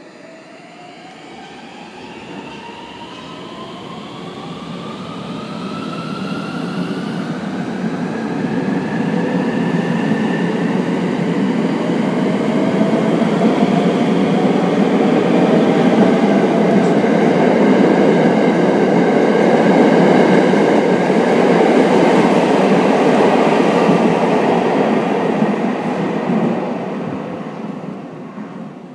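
JR West Thunderbird limited-express electric train pulling out and gathering speed past the platform. Several motor whines rise in pitch over the first ten seconds or so, under running and wheel noise that grows to its loudest past the middle and fades near the end as the last car goes by.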